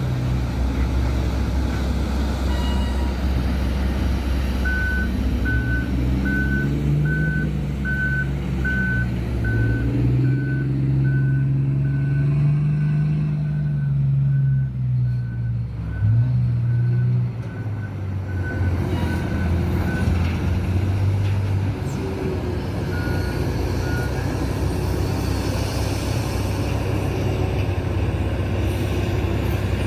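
Komatsu HD785 mining dump truck reversing: its back-up alarm beeps evenly, a little over once a second, for about fifteen seconds. Its large diesel engine runs throughout, revving up and down in the middle and settling to a steadier, lower note near the end.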